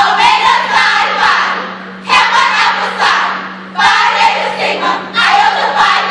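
A group of women shouting a chant in unison, in four loud phrases about every one and a half to two seconds.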